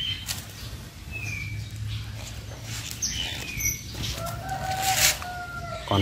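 Small cage finches giving short, falling chirps, while a rooster crows in the background from about four seconds in, its call dropping away at the end. There are scattered rustling clicks over a low steady hum.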